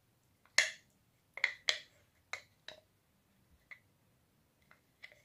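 Metal spoon clicking and tapping against a glass jar and glass bowl while scooping out thick chocolate spread: a string of short, sharp, irregular clicks, the loudest in the first three seconds and fainter after.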